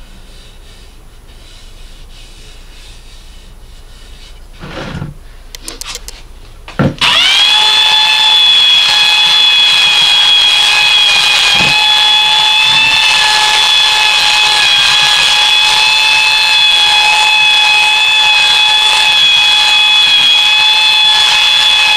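Ryobi belt sander switched on about seven seconds in, its whine rising quickly to speed, then running steadily while it sands the end-grain face of a poplar and alder cutting board. Before it starts there are a few soft knocks.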